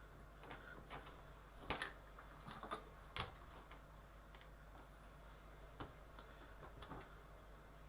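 Faint, scattered light clicks and taps from small miniature parts and a glue applicator being handled during gluing, over a steady low hum.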